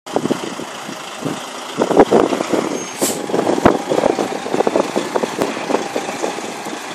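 DAF XF truck moving slowly past, its diesel engine running under irregular knocks and rattles, with a short hiss of air about three seconds in.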